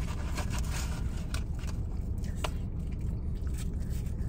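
Fingers scraping and rustling inside a paperboard fry carton, with scattered sharp clicks, over a steady low hum.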